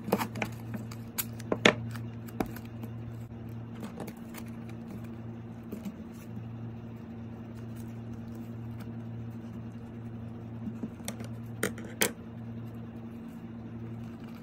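Wide sticky tape being pulled and pressed onto folded paper, with paper handling: scattered crackles and sharp ticks, loudest early and again about twelve seconds in, over a steady low hum.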